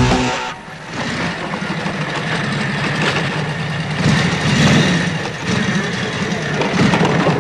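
Motorcycle engine running at low revs as the bike rolls up and stops, swelling about four and a half seconds in and again near the end. Rock music cuts off just after the start.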